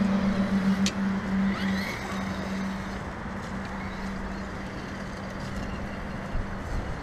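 Small electric motor of an RC rock crawler running with a steady hum over rough noise. The noise drops back after about two seconds, and the hum stops near the end.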